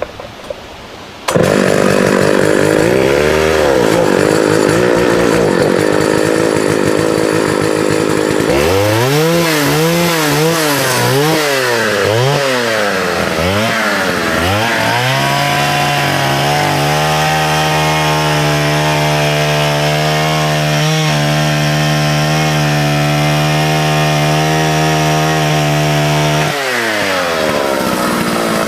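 1979 Partner S-55 two-stroke chainsaw running hard in a bore cut into the trunk. It starts suddenly about a second in, and its pitch rises and falls over and over for several seconds as it works in the cut. Then it holds a steady high whine and drops slightly near the end.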